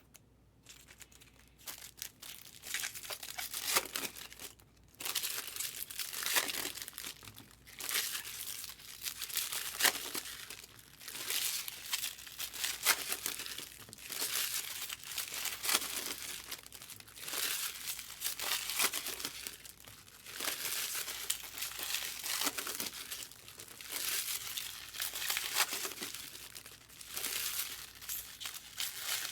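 Topps Chrome trading-card pack wrappers crinkling and tearing as packs are ripped open and the cards handled, in repeated rustling bursts every couple of seconds.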